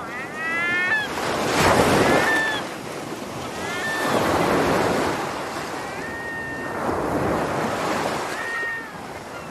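Sea waves breaking and washing ashore in swells every two to three seconds, with gulls calling over them. The gulls give a quick run of rising calls at the start, a few shorter calls later on, and one longer drawn-out call about six seconds in.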